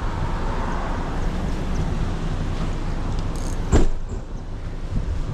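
Steady low road-traffic rumble, with a single sharp knock about four seconds in.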